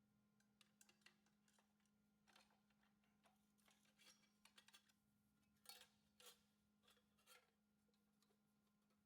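Faint, irregular scraping and clicking, a dozen or so short strokes with the loudest about two thirds of the way through, over a steady low hum.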